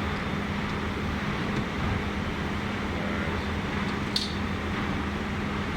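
Steady machine-room hum and fan-like noise, with a low constant tone, from the switchgear room's equipment and ventilation. A single sharp click about four seconds in, as the metal cubicle door is worked onto its hinges.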